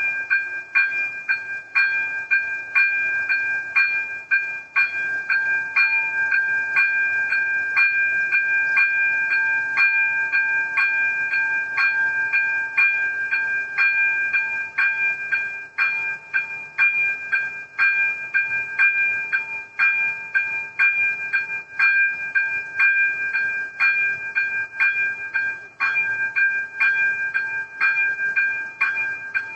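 Electronic warning bell of an AŽD 97 railway level crossing ringing in a steady, regular rhythm of bright ding strikes, each with a ringing tone. It is the crossing's warning that a train is approaching, sounding while the barriers are down.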